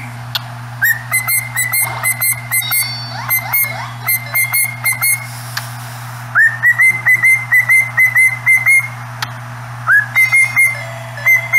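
Cockatiel whistling its song: quick runs of short notes, each swooping up and then holding, with brief pauses between runs, over a steady low hum.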